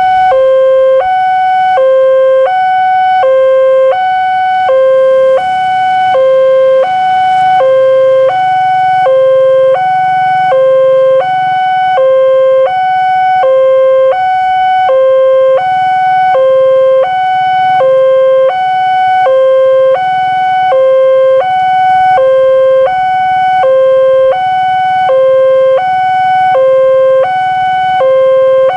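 Railway level-crossing warning alarm from the signal pole's loudspeaker, an electronic two-tone signal alternating steadily low-high, each tone held about half a second. It sounds while the barrier is down and the lights flash, warning that a train is approaching.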